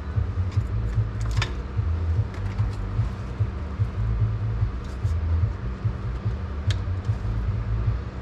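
Steady low hum and rumble of running crypto-mining rigs and their cooling fans, with a couple of short clicks of cables and connectors being handled.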